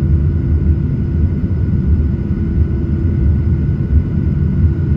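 Jet airliner engines at takeoff power, heard inside the passenger cabin: a loud, steady deep rumble with a thin, constant whine above it.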